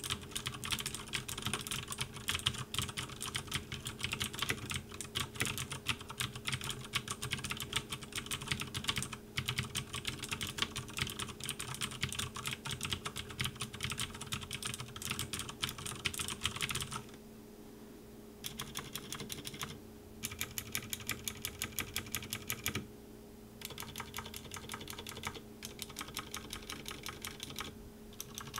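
Leopold FC600R mechanical keyboard with clicky blue switches being typed on. Fast continuous typing for about 17 seconds, then a short pause, then runs of evenly spaced keystrokes with brief gaps between them. A faint steady hum sits underneath.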